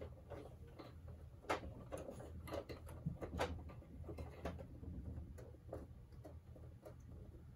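Scattered faint clicks and taps of hard plastic toy parts being handled and worked loose, as the missile unit of a 1988 GI Joe Rolling Thunder vehicle is pried out, over a low steady hum.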